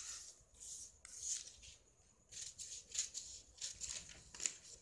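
Long-bladed tailor's scissors cutting through folded newspaper in a quick string of short snips, with paper rustling as it is turned. The snipping stops briefly about two seconds in, then starts again.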